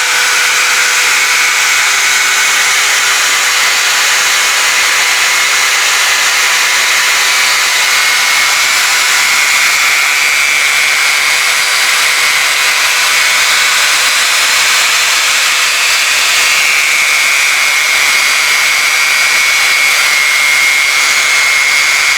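Homemade lathe running steadily, its motor giving a constant whine over an even hiss of a tool working the spinning workpiece.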